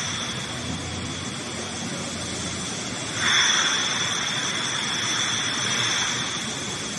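Industrial machinery in a beverage bottling plant: a steady hiss with a high, even whine. About three seconds in, a louder rush of hissing starts up and carries on.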